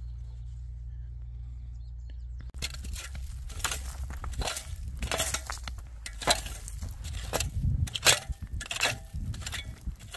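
A steady low rumble for the first two seconds or so, then a rake dragged through stony soil in repeated strokes, stones scraping and clinking against each other and the tines.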